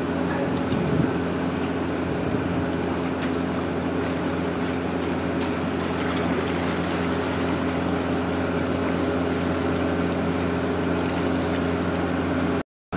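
Steady low engine hum, like a motor running at idle, over a haze of wind and water noise; it drops out for a moment near the end.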